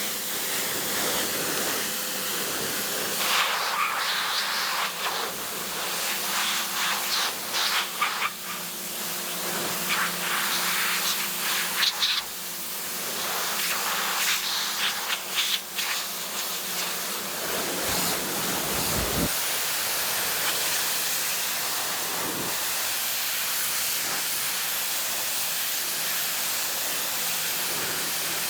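A steady hiss, with scattered light clicks and knocks through the middle and a brief low rumble a little past the halfway point.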